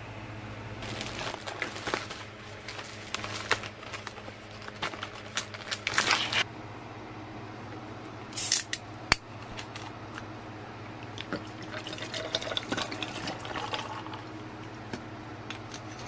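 Liquid poured into a glass jar over ice, with clicks and clinks of ice against the glass, over a steady low hum.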